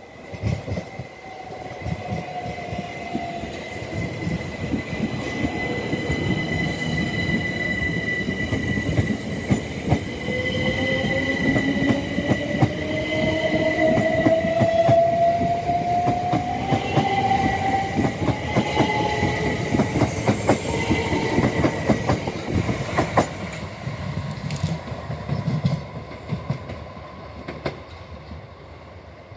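Southern Class 377 Electrostar electric multiple unit passing close by: the sound builds as it approaches, peaks about halfway through, and fades as it goes. Rapid wheel clicks run through the pass, with a steady high squeal and a whine that rises in pitch mid-pass.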